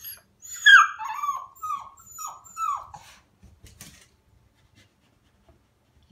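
A 7-week-old Siberian husky puppy's first howl: about five short, high howls in a row, each falling in pitch, the first the loudest, over roughly two and a half seconds, followed by a few faint scrapes.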